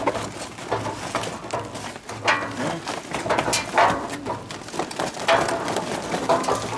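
Charcoal briquettes and the metal grill clinking and scraping as fresh coals are added to and spread in a charcoal grill, in a series of irregular sharp clinks.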